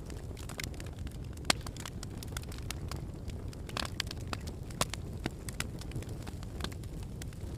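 Campfire crackling, with irregular sharp pops over a low steady rumble.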